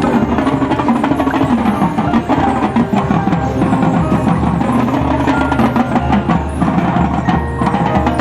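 High school marching band playing its field show: brass and winds with drums and front-ensemble mallet percussion keeping a steady pulse.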